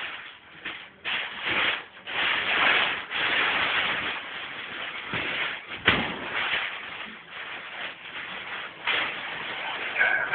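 Rustling and shuffling noise in uneven swells, from the hand-held phone being moved around, with one sharp knock about six seconds in.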